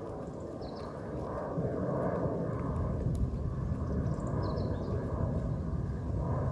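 Steady distant engine rumble outdoors, getting louder about a second and a half in, with a few faint high chirps over it.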